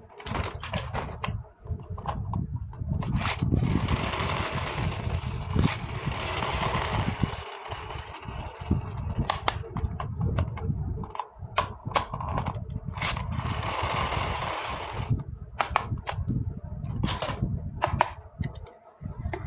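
Toy packaging and plastic toy parts being handled close to the microphone: irregular rustling and scraping broken by many sharp clicks and taps.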